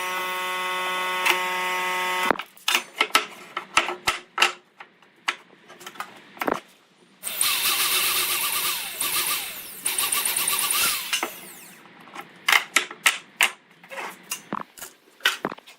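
A power tool's motor runs with a steady whine and cuts off about two seconds in. Scattered knocks and clicks follow, broken by two short stretches of rough, noisy working sound.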